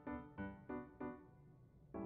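Soft background music: four quick, fading piano-like notes in the first second, then a pause of about a second.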